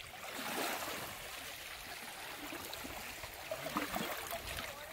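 Water lapping and trickling in a steady wash of noise.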